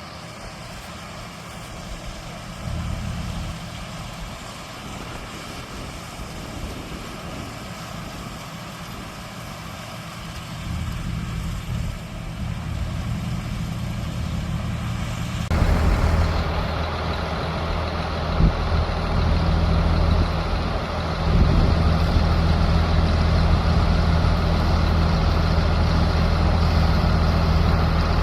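Large diesel engine of harvest machinery running steadily. About halfway through it suddenly gets louder and fuller, and stays that way.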